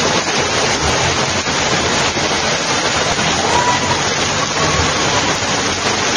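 Loud, steady rush of fast-flowing floodwater and heavy rain.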